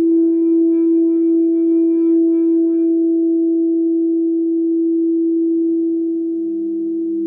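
Crystal singing bowls ringing with one long, steady tone, its higher overtones pulsing and dying away. A second, lower-pitched bowl joins about six seconds in.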